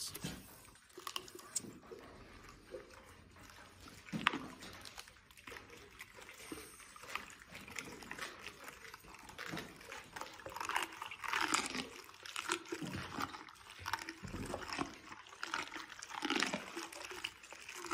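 Camels chewing cactus at close range: wet, irregular munching and crunching, busier in the second half.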